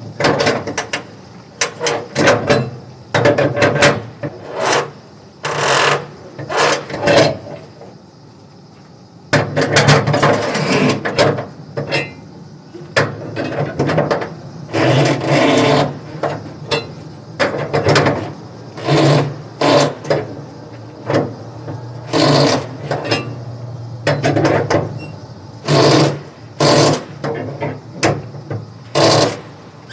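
Flatbed trailer strap winch being cranked tight with a winch bar: the ratchet clatters in short, uneven bursts with each pull, with a pause of about a second partway through.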